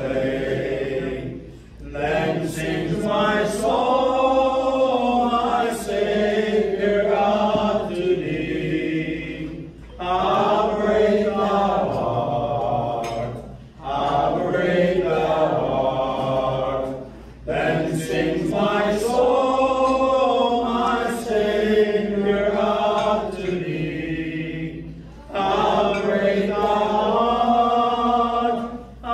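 Two men's voices singing a song together without accompaniment, in long sustained phrases with short pauses for breath between them.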